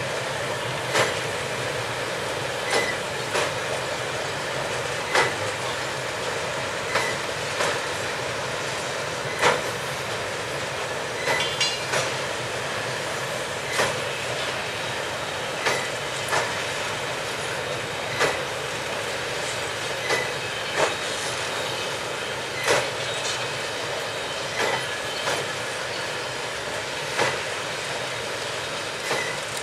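Loaded container wagons of a freight train rolling past: a steady rolling rumble of steel wheels on rail, with a regular clickety-clack as the wheelsets pass over rail joints, the clicks often coming in pairs every second or two.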